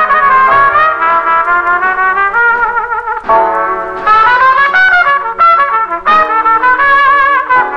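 Background music: a brass melody led by trumpet, with vibrato on the held notes.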